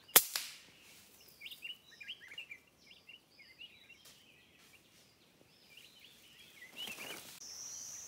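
A single shot from a suppressed PCP air rifle, a sharp crack right at the start, followed by a scatter of quick bird chirps for a couple of seconds.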